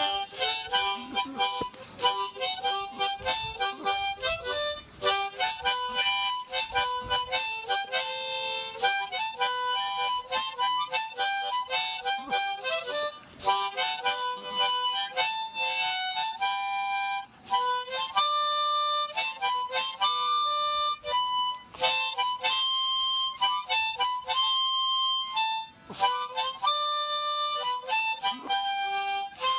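A harmonica played solo: a lively old-time tune of short, quickly changing notes, with a few notes held longer in the middle.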